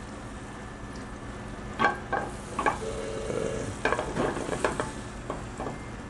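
Floured flounder fillet laid into a hot skillet of olive oil and butter, frying with a steady sizzle. A few sharp clicks and knocks come in the middle.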